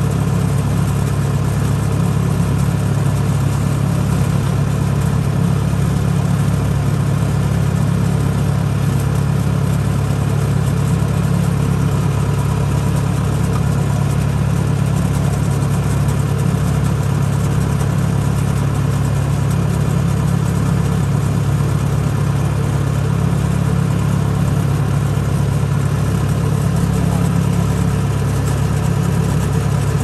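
Rice combine harvester's engine running steadily, a constant low drone with steady tones and no change in pace.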